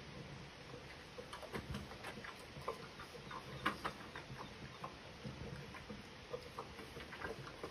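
Giant panda licking out a metal bowl held to its face: irregular wet tongue smacks and clicks, a few a second, with a louder one about halfway through.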